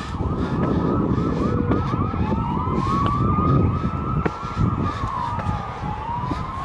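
Emergency vehicle sirens. One runs on a fast yelp; about two seconds in a second joins on a slow wail that rises, holds, dips and rises again. A low rumbling noise runs underneath.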